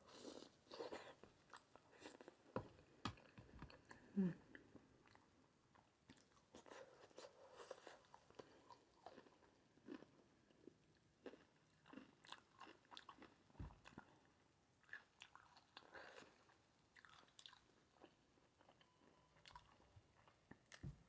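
A person chewing and biting a mouthful of sausage, rice and cucumber close to the microphone: quiet mouth sounds with many short clicks, a couple of louder ones about three to four seconds in.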